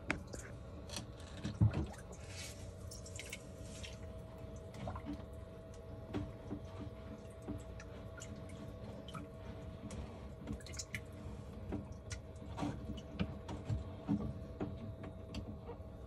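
Water dripping and splashing in a saltwater aquarium's filter area, with scattered irregular drips over a steady pump hum.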